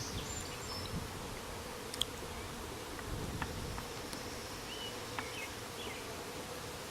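Honey bee swarm buzzing: a steady hum of many bees in flight, with a sharp click about two seconds in.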